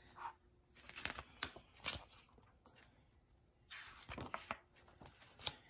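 Pages of a hardcover picture book being turned by hand: a few short, faint paper rustles and soft taps, the longest rustle about four seconds in.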